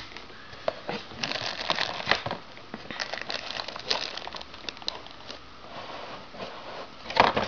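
Clear plastic bags crinkling as they are handled, with irregular small crackles and a louder rustle near the end.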